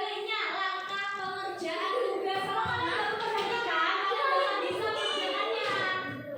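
A group of children singing together, held sung notes rather than talk.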